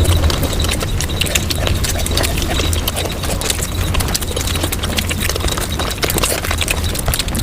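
Sped-up mukbang eating sounds: chewing, smacking and crunching run together into a dense, continuous rattle of rapid clicks with a low rumble beneath.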